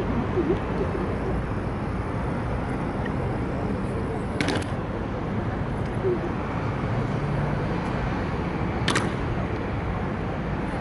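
Steady city traffic noise with faint voices, broken by two sharp clicks about four and a half and nine seconds in.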